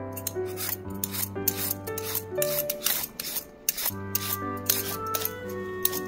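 Quick repeated rasping strokes, several a second, of something being scraped against a raw sweet potato, under background music.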